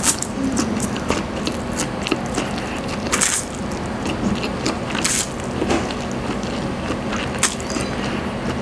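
Close-miked eating of Lucky Me Pancit Canton instant stir-fried noodles: wet chewing with many small mouth clicks, and noodle slurps, the longest about three seconds in and another about five seconds in.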